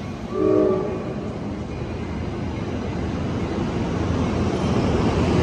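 Amtrak San Joaquin passenger cars rolling past as the train pulls out of the station: a steady rumble of wheels on rail that grows louder toward the end. A short tone sounds about half a second in.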